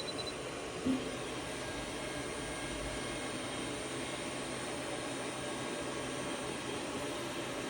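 Steady whooshing hum of running machine-shop equipment, even in level throughout, with a short low blip about a second in.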